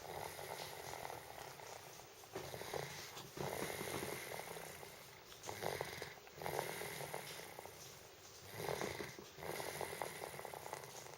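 A sleeping pet snoring loudly in slow, rhythmic breaths, each raspy swell lasting a second or two.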